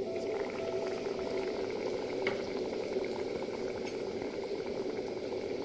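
Hot oil sizzling and crackling steadily as a batter-dipped, oats-coated banana fritter deep-fries in an iron kadai.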